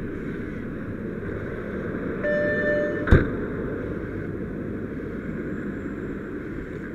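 Fire engine running steadily, with a short electronic tone lasting under a second about two seconds in, then a single loud thump of the cab door as the firefighter climbs out.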